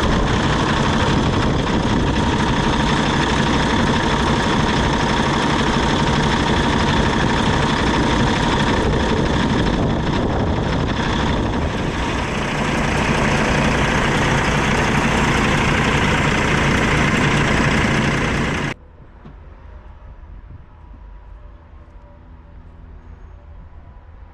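Diesel engine on a sleeper semi-truck running steadily, sounding like it's knocking. About 19 seconds in, the sound cuts off sharply, leaving a much quieter low hum.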